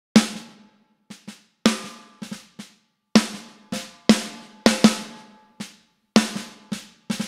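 A soloed recorded snare drum track plays a groove, with about fourteen hits, some of them quieter ghost notes, each ringing out briefly. It runs through a JS 1175 compressor (an 1176-style design) at a 4:1 ratio. The threshold is being lowered to about −16 dB with makeup gain added, so the snare is being compressed.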